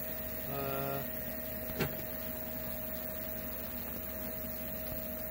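Injector test bench running with a steady hum and a thin steady tone while a Toyota 22RE cold start valve, held open under pressure in a static test, sprays fuel. A short buzzing tone sounds about half a second in, and a single click near two seconds.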